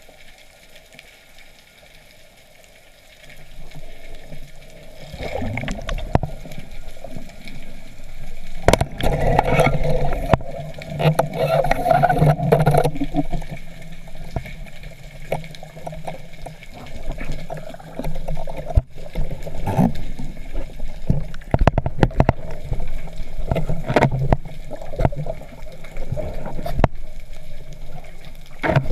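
Water sloshing and gurgling around the camera at or under the surface, with scattered sharp clicks and knocks; it grows loud about three seconds in.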